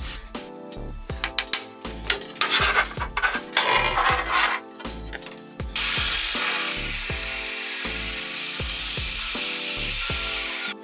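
Magnetic drill press drilling a steel plate: the motor and cutter start abruptly about halfway through as a loud, steady noise with a high whine, then cut off suddenly at the very end. Before that there are scattered clicks and short scraping sounds.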